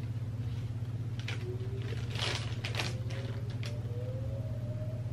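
Outdoor tornado warning siren winding up, heard faintly as a tone rising slowly in pitch from about a second in, with a second rising tone overlapping it. Over a steady low hum, plastic packaging rustles and crinkles in short bursts as it is handled.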